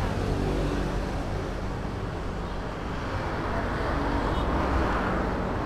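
Road traffic: a steady rumble of passing vehicles, swelling as one goes by about four to five seconds in.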